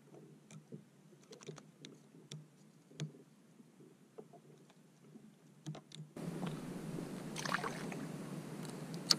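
Faint small clicks and rustles of hands rigging a live bait on a fishing hook. About six seconds in, this switches abruptly to steady wind and water noise on an open-water kayak, with a sharp click near the end.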